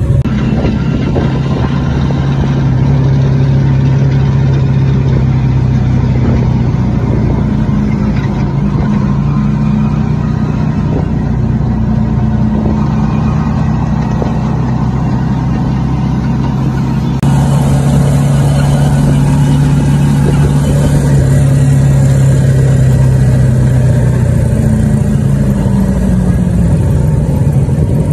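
Motorcycle engine of a passenger tricycle running steadily, heard from inside the sidecar. Its pitch drops near the end as it slows.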